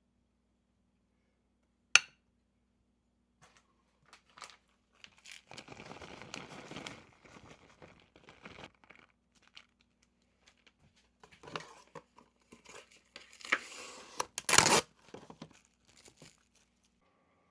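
Plastic packaging crinkling and tearing while a dish is prepared in a kitchen. There is a sharp click about two seconds in, a few seconds of rustling after that, and the loudest tear near the end.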